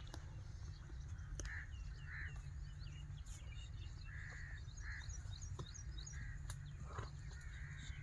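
Birds chirping and calling again and again, with short high chirps and lower call notes, over a steady low rumble.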